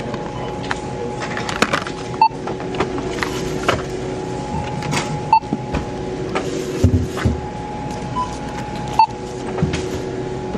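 Self-checkout barcode scanner beeping as items are scanned, three short beeps a few seconds apart, with a couple of fainter ones. Underneath is a steady electrical hum and the clatter of items being handled.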